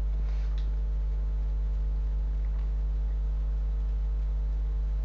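Steady low electrical hum with a ladder of even overtones, unchanging throughout, and a faint click or two about half a second in.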